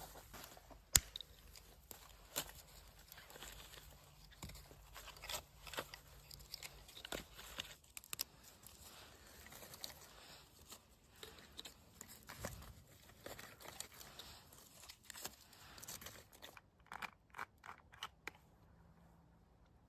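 Close-up handling noises: small crunches, rustles and crinkling with scattered clicks, the sharpest click about a second in.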